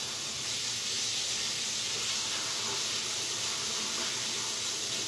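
Water running steadily from a kitchen tap, an even hiss.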